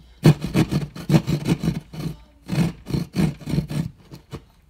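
Hand drywall jab saw cutting through drywall in quick back-and-forth strokes, about three a second, stopping about four seconds in.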